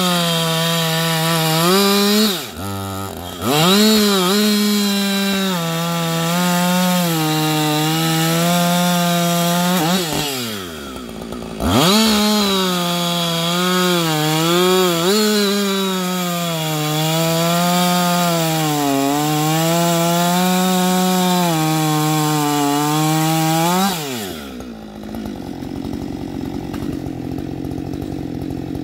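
Husqvarna 560 XP two-stroke chainsaw held at full throttle while its ripping chain cuts wood, the engine pitch sagging and recovering under load. It drops back briefly twice and revs up again, then about twenty-four seconds in it falls back to idle.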